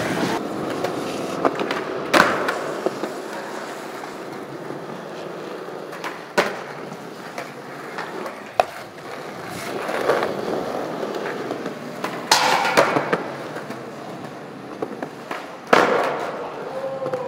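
Skateboard wheels rolling on smooth concrete, broken several times by sharp clacks of the board popping and landing, echoing in an enclosed concrete space.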